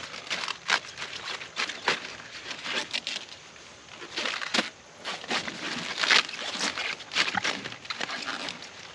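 Crisp, irregular snapping and crunching of cabbage leaves being broken and cut from the heads by hand, with leafy rustling between the snaps.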